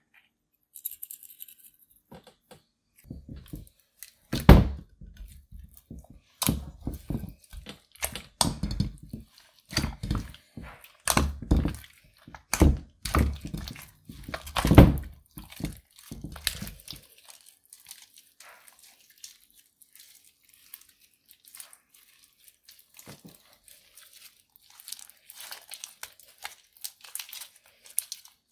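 Clear slime mixed with crushed eyeshadow being squeezed and kneaded by hand: a run of loud squishy pops and squelches, then fainter crackling from about seventeen seconds on as the slime is stretched.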